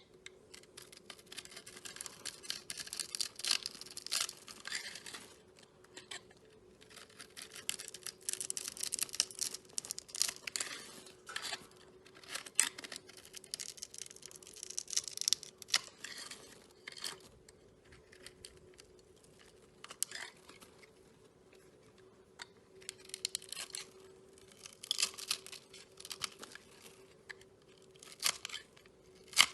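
Slime being squeezed and stretched by hand close to the microphone, giving bursts of dense crackling and popping clicks with short pauses between them.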